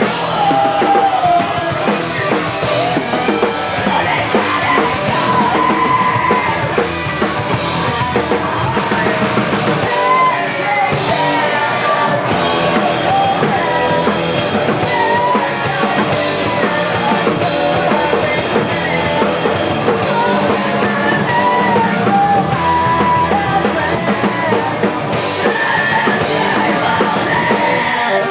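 A rock band playing live and loud: drum kit and guitars, with a wavering melody line on top.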